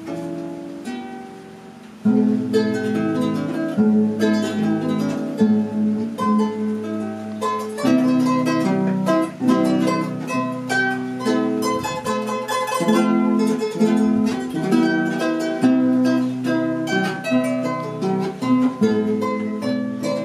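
Cusco-made Andean harp being played: a plucked melody over ringing low bass notes. The playing is soft at first and grows fuller from about two seconds in.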